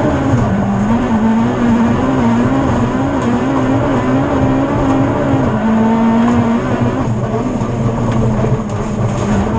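Rallycross car's engine at racing revs, heard from inside the cockpit. Its note wavers up and down, holds steady briefly, then drops back about seven seconds in.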